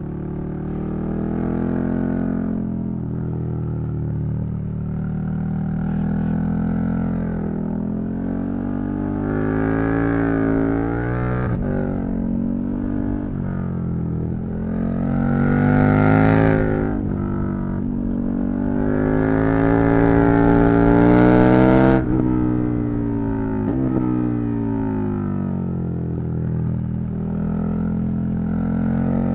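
KTM 1290 Super Duke R's V-twin engine under way. The pitch climbs in repeated pulls under throttle and drops back between them at the shifts. The loudest, highest pull cuts off abruptly about three-quarters of the way through, as the throttle shuts, and the engine settles to a lower, steadier note.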